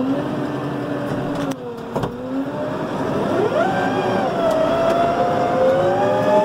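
Loader tractor engine working under load while moving heavy wet manure. Its speed sags with a couple of clunks about two seconds in, then climbs about three and a half seconds in and stays high.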